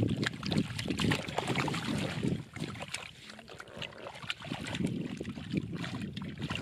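Shallow water sloshing and splashing, with many small sharp splashes and knocks, growing fainter over the last few seconds.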